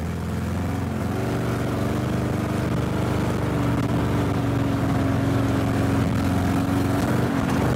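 Old sedan's four-cylinder engine running rough at low speed on only three cylinders, its glue-and-epoxy-repaired piston holed and the engine coughing, getting gradually louder as the car approaches.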